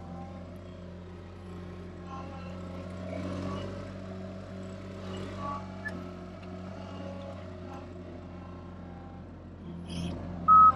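Avant 528 compact loader's engine running steadily at a constant pitch as the loader drives across a field. A loud, high electronic beep sounds near the end.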